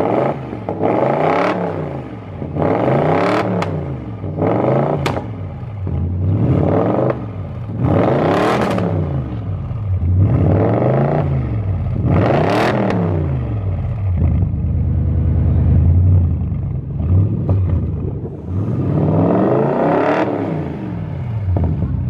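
Audi RS7's twin-turbo V8 with a loud exhaust being revved in a series of short blips about every one to two seconds. After that it idles for a few seconds, then gets one more rev near the end.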